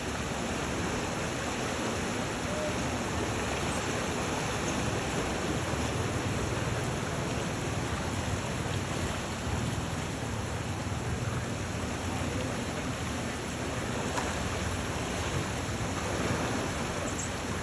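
Steady rushing noise of moving water, even and unbroken throughout.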